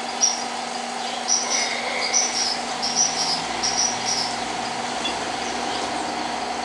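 High-pitched chirping in short clusters of two or three from a small animal, over a steady hum.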